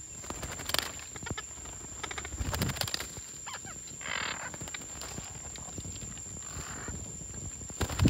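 Small green parrots moving about in dry branches and leaf litter: scattered light knocks and clicks, two short rustles about four and six and a half seconds in, and a dull thump near the end.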